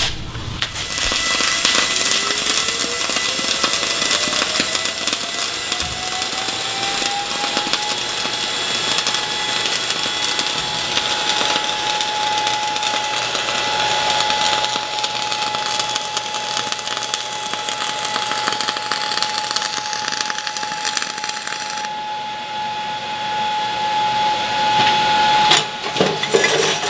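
Welding arc of an ESAB Rebel EMP 235ic running .045 in gas-shielded flux-cored wire on a horizontal fillet weld: a steady crackling hiss for about 25 seconds, stopping shortly before the end. Under it a thin whine rises in pitch over the first several seconds and then holds steady until the arc stops.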